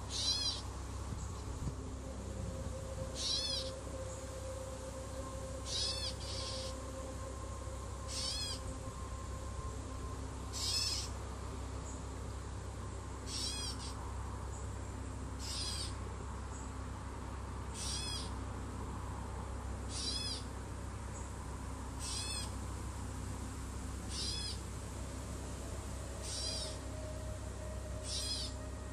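A bird calling: a short, high, wavering call repeated at an even pace about every two seconds, over a steady low hum.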